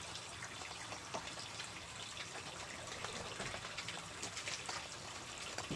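Water trickling and splashing steadily, with many small scattered taps and splashes.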